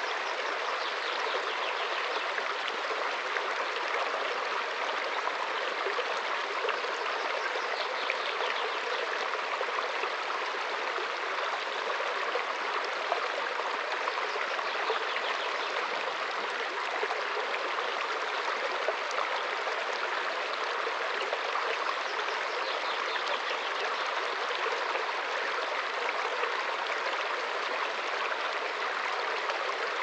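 Small woodland brook running over stones, a steady rush of water.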